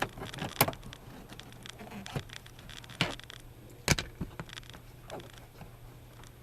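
Scattered sharp clicks and light knocks of hands handling a car's door trim panel and switch parts, with louder snaps about half a second in, at three seconds and, loudest, just before four seconds.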